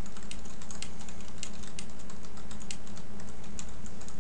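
Typing on a computer keyboard: a quick, uneven run of key clicks as a sentence is typed, over a steady low hum.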